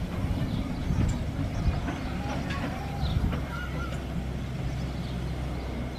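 Small narrow-gauge steam locomotive running slowly into the station, with a low, uneven rumble that evens out about halfway through. A few short bird calls sound about two to three seconds in.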